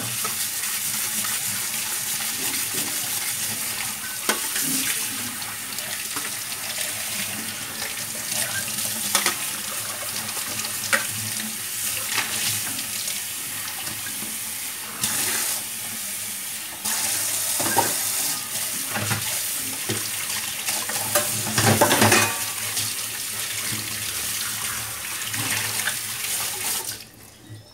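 Water running from a tap into a sink in a steady hiss, turned on suddenly and shut off shortly before the end, with a few knocks in between.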